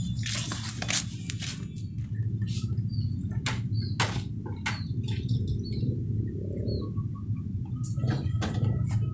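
Rural yard ambience: a steady low rumble with scattered short bird chirps and a thin, steady high whine. A few clicks and rustles come in the first second or so.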